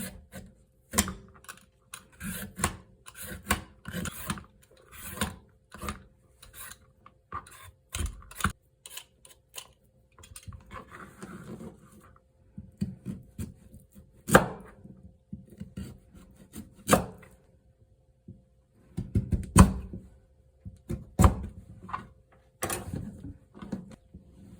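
Kitchen food-preparation sounds: irregular knocks, clicks and scrapes of utensils on a wooden board and dishes, with a few sharper knocks. A faint steady hum runs underneath.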